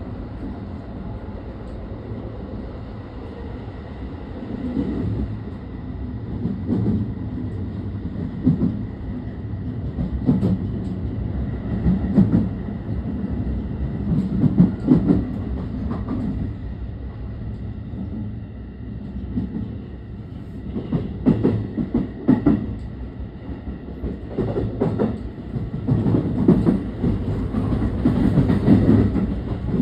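Running noise heard inside a JR West 223 series 2000-subseries trailer car (SaHa 223), which has no motors. The wheels rumble steadily on the rails, with irregular clickety-clack knocks from rail joints that come in louder clusters about a third of the way in, past the middle and near the end.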